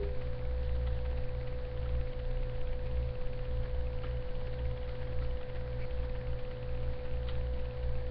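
A steady pure tone held at one pitch, with a low hum beneath it; no speech.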